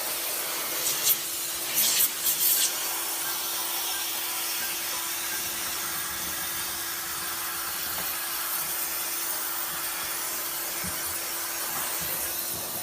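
Steady hiss of a water sprayer washing an air conditioner, over a constant motor hum, with a few short louder noises about one to two and a half seconds in.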